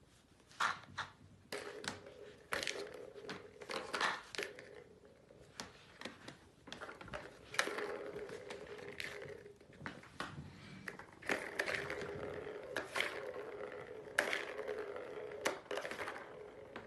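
Plastic balls rolling round the tiers of a cat's ball-track tower toy, a steady rolling sound that starts about a second and a half in, broken by irregular clicks and knocks as the cat bats at the balls.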